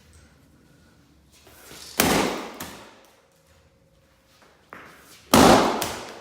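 Sledgehammer striking a laptop's screen: two heavy blows about three seconds apart, each ringing out over about a second, with a lighter knock just before the second.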